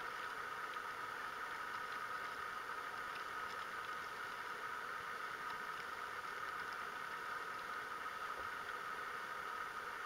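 A steady, unchanging hum with a faint hiss over it and a few faint ticks.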